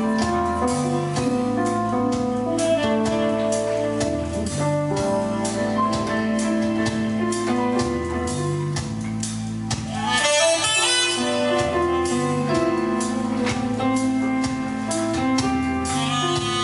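Soul band music: a steady groove with a repeating bass line, keyboards and saxophone. About ten seconds in, a bright, high phrase stands out over the band.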